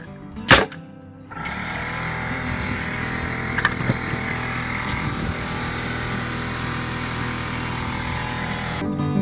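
Oil-free Bostitch 6-gallon pancake air compressor starting up and running steadily with a hiss, after a sharp bang about half a second in; it stops near the end as guitar music begins.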